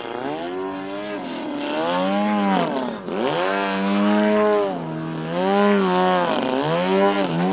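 Engine and propeller of a large radio-controlled aerobatic plane, the pitch rising and falling again and again as the throttle is worked through aerobatic manoeuvres, with sharp drops about every two seconds.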